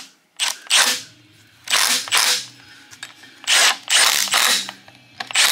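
Milwaukee Fuel cordless impact wrench hammering on an LS engine's camshaft sprocket bolts, in three short bursts of under a second each.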